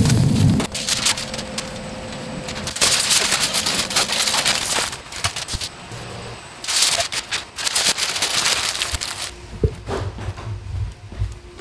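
Aluminium foil crinkling and rustling as a smoked brisket is wrapped, in two bursts of a couple of seconds each, with a few light knocks.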